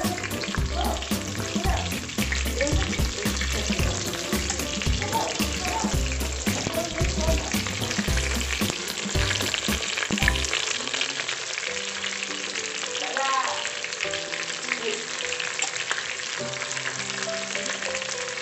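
Masala-stuffed brinjals sizzling and crackling as they fry in oil in a pressure cooker pan, with low bumps as more brinjals are set into the pan during the first half. The frying carries on steadily after the bumps stop.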